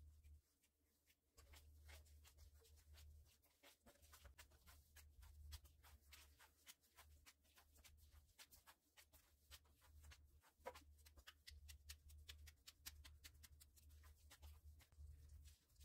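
Faint, irregular soft clicks and squishes of hands kneading oily bulgur-and-flour kibbeh dough, over a low steady hum.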